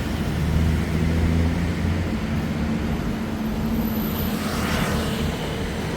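City street traffic: motor vehicles running nearby with a steady low engine rumble.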